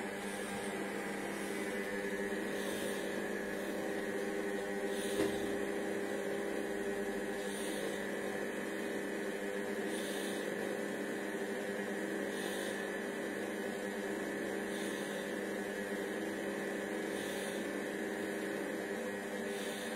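Cecotec Mambo 8590 kitchen robot running steadily while it cooks at 100 degrees, its motor and heater giving a constant hum. A faint soft swish comes back about every two and a half seconds, and there is a single small knock about five seconds in.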